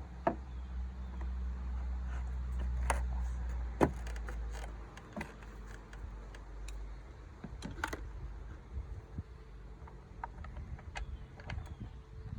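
Scattered light clicks and taps over a low steady rumble that fades out about five seconds in.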